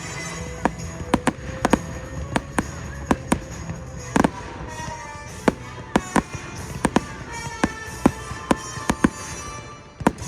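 Fireworks going off in quick succession, sharp bangs and cracks about twice a second, irregularly spaced, over music playing.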